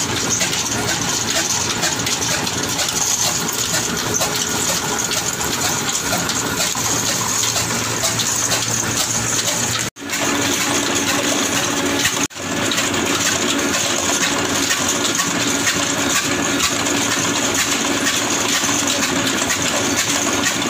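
Old Ruston Hornsby stationary diesel engine running steadily, its big flywheel and flat belt drive turning, giving a continuous mechanical clatter and hiss.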